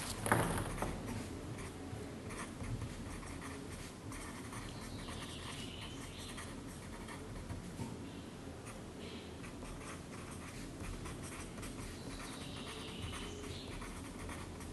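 Pen writing on paper: a faint scratching, with a soft knock just after the start.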